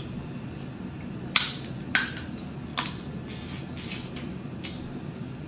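Snow crab leg shells cracking and snapping as they are broken apart by hand: four or five sharp cracks over a few seconds, the first the loudest, over a steady low hum.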